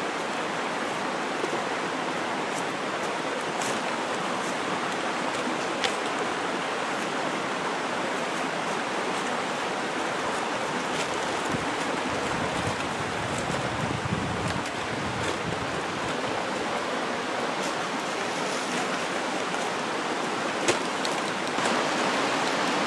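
Steady outdoor rushing noise with a few faint ticks and rustles from birch bark being handled and laid on a pole shelter frame; a short low swell comes about halfway through.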